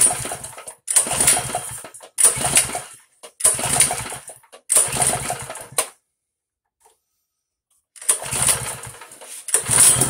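Small single-cylinder mini bike engine being pull-started by its recoil starter with the choke on: a run of quick pulls, each spinning the engine over for about a second, then a two-second pause and two more pulls, without it settling into a steady run.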